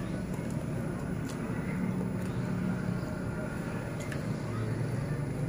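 Steady low rumble of background noise, with a few faint clicks.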